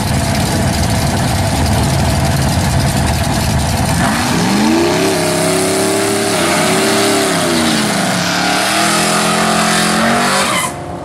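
Drag-race car engines at full throttle. A loud, rough engine rumble for about four seconds, then an engine note that climbs in pitch, drops and climbs again twice as a car accelerates hard through its gears, cutting off near the end.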